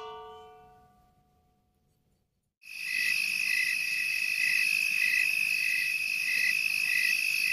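A single struck musical note rings and fades over about two seconds. After a short silence, a night ambience of crickets comes in and carries on: a steady high trill with a chirp repeating about three times every two seconds.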